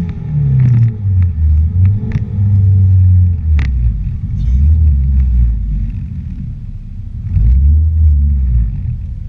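Honda Insight's swapped K20 four-cylinder engine coming down off a high rev in the first second, then running at low revs with a deep exhaust rumble. The rumble swells louder twice, about three seconds in and again near the end.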